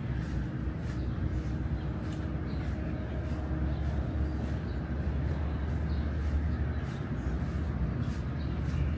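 Steady low outdoor rumble with light footsteps on pavement ticking about twice a second at walking pace.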